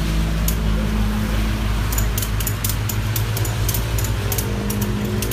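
Engine idling steadily under a series of quick, irregular sharp clicks from about two seconds in, as ratchet tie-down straps are worked and tightened.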